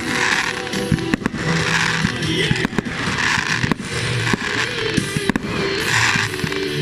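Fireworks going off: repeated sharp bangs and crackling bursts throughout, with music playing underneath.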